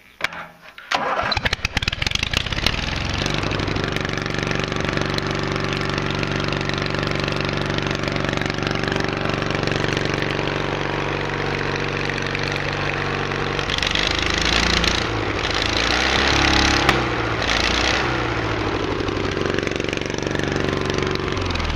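Briggs & Stratton 18-horsepower twin-cylinder engine on a racing lawnmower, with one cylinder straight-piped, cranked by its electric starter and catching within a couple of seconds, then running steadily. It is throttled up and runs louder for a few seconds in the middle before dropping back to a steady run.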